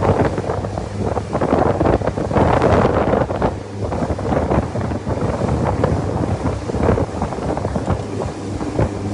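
Wind buffeting the microphone in gusts, over a steady low engine hum.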